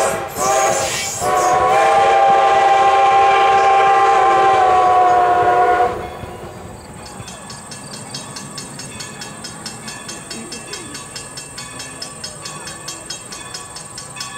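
Steam locomotive whistle of ex-Great Western No. 90, a Baldwin 2-10-0: two short toots, then one long blast of about four and a half seconds that cuts off about six seconds in. After that, a much quieter stretch of faint regular ticking over a steady high hum.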